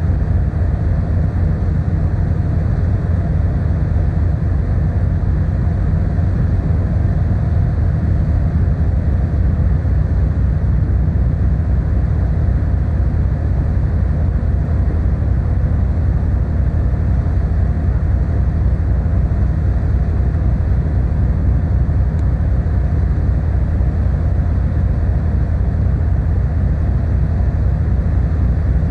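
Car ferry underway, its engines giving a steady, deep, even drone.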